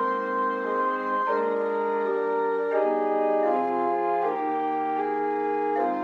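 Pipe organ playing slow, sustained chords that change every second or so.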